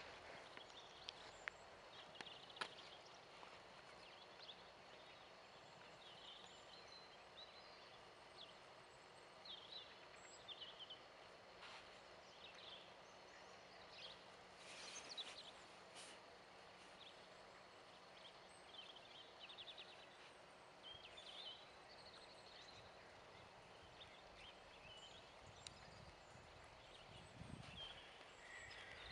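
Near-silent outdoor ambience with faint, scattered bird chirps and a couple of sharp clicks about two seconds in. Near the end come a few soft low thuds from the pony's hooves on the sand arena as it walks up.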